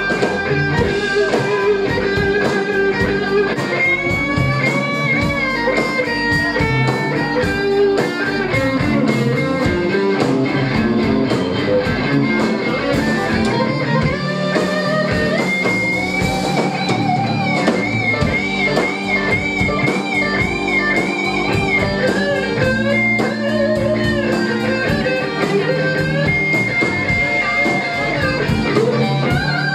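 Live rock-blues band playing, led by a Stratocaster-style electric guitar taking a lead solo over the drum kit: the guitar holds several long, wavering notes with vibrato.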